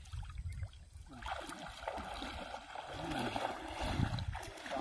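Shallow river water splashing and sloshing around the legs of someone wading and gathering up a cast net. The splashing comes in about a second in, over a low rumble.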